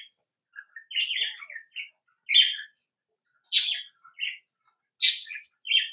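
Small pet birds chirping and calling in short high bursts, with brief pauses between them.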